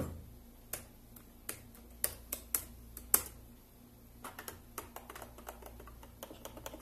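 Laptop keyboard keys being pressed and tapped in irregular clicks, with one sharper click about three seconds in and a quicker run of lighter taps over the last few seconds.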